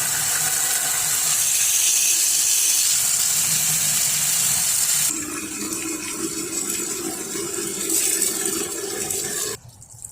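Water from a hose spraying hard onto dirty vacuum cleaner parts. About halfway in the rush turns lower and more hollow, then it stops abruptly near the end.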